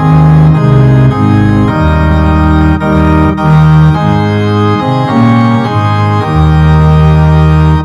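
Organ playing slow sustained chords over held bass notes, the chords changing every second or so.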